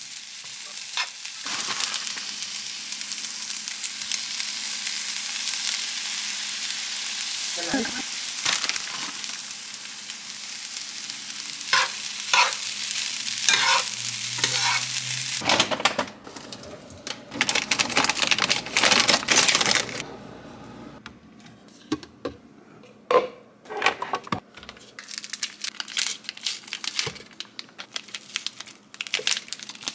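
Food sizzling in a frying pan, a steady hiss for about the first fifteen seconds. Then a few seconds of louder, rougher noise, followed by scattered clicks and knocks of kitchen handling.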